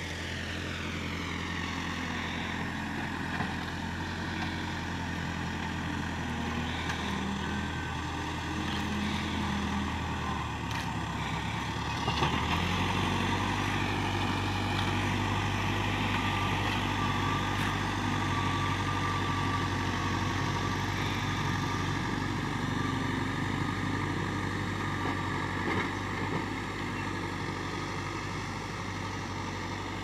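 Case 580K backhoe loader's diesel engine running steadily, growing louder and deeper about twelve seconds in.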